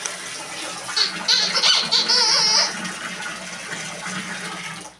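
Water running steadily from a tap or shower hose onto the bath, with several short, high squeaks about a second in that are the loudest sounds.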